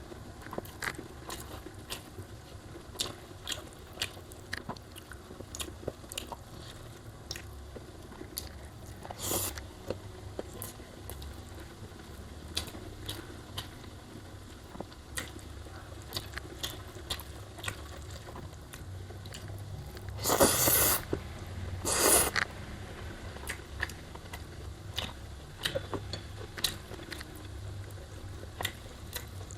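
Close-up chewing and mouth sounds of someone eating rice with a thick Padang omelette and greens, with frequent small clicks and smacks. Two louder, brief noisy sounds come about two-thirds of the way through.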